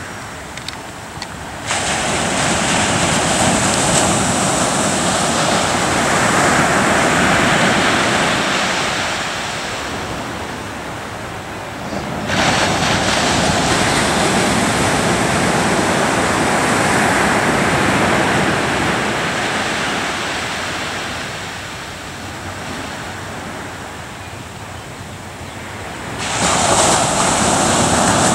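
Ocean surf breaking on a sandy beach: a steady wash of noise that swells suddenly three times, about two seconds in, about twelve seconds in and near the end, fading slowly after each.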